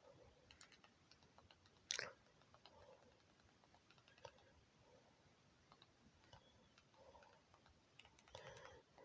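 Near silence with faint scattered clicks, and one sharper click about two seconds in.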